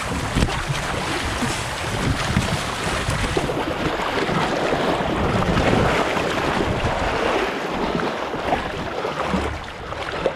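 Water splashing and sloshing as a person clambers through a pond over floating inner tubes, with wind buffeting the microphone.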